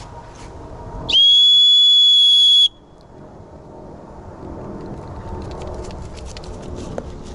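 One long, steady, shrill blast of about a second and a half on a black plastic gundog whistle, a recall signal that brings the German shorthaired pointer running back in.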